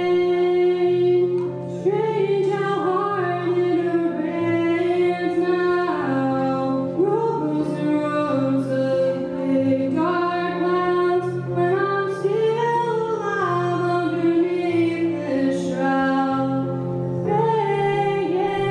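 A young female voice singing a song into a microphone, holding and sliding between long notes over sustained instrumental chords that change every second or two.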